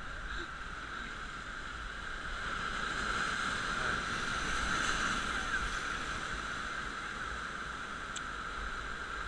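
Sea surf washing and breaking over shoreline rocks, a steady rush that swells to its loudest a few seconds in as a wave surges in, then eases back.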